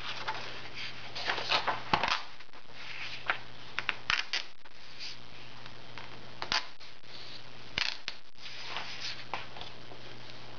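Paper pages of a paperback colouring book handled and turned by hand: crisp rustling and crackling with several sharp paper snaps, the loudest about two, four, six and a half and eight seconds in, over a steady faint low hum.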